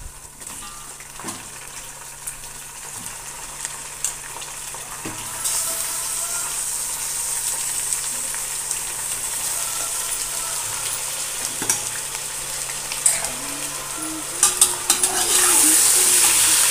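Raw mutton pieces sizzling in hot oil in a steel pot. The frying hiss grows louder about five seconds in and again near the end. Toward the end a steel ladle stirs the meat and clinks against the pot.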